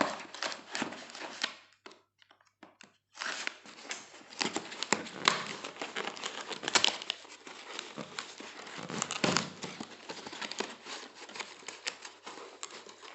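Cardboard box and its packing being handled and pulled open to unpack a keyboard: a string of irregular rustles and light knocks, with a short pause about two seconds in.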